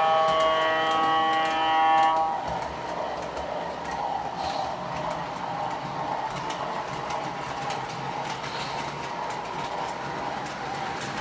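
O scale model diesel locomotive's electronic horn sounding one steady chord, which cuts off about two seconds in. It is followed by the steady rumble of O scale freight cars rolling along the track, with light clicking from the wheels and rail joints.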